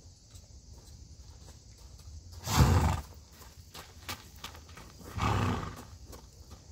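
Saddled horse moving around on a lunge line over gravel, its hoofbeats faint. Two loud, low bursts of noise come about two and a half and five seconds in, the first the louder.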